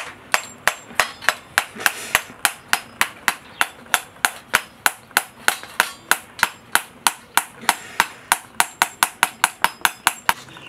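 A knife blade tapped again and again against a husked coconut's shell to crack it open into halves: about four sharp knocks a second, each with a faint metallic ring. The knocks come a little faster near the end.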